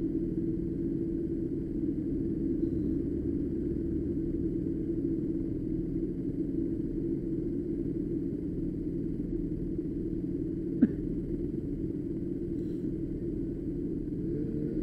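Steady low rumble of a street go-kart on the move: small engine running, with road and wind noise. One sharp click about eleven seconds in.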